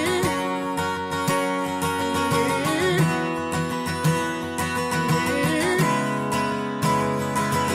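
Background music: a song's instrumental passage led by a strummed acoustic guitar.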